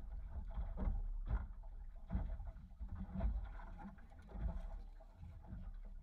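Wind rumbling on the microphone in an open boat, with about five irregular knocks and bumps on the boat.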